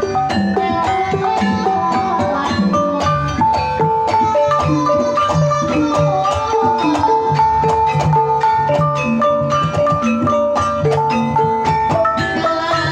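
Javanese Banyumasan gamelan ensemble playing a tayub piece: bronze bonang kettle gongs struck in quick running patterns with padded sticks over kendang drumming, with long held melodic notes above.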